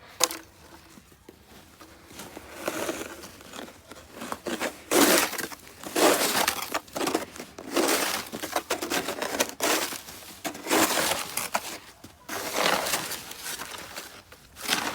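Packed snow crunching in repeated bursts, roughly one every second or two.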